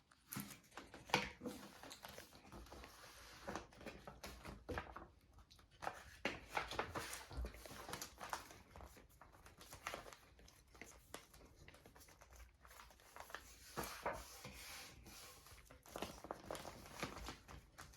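Paper rustling and crinkling in short irregular strokes as a handmade journal is handled.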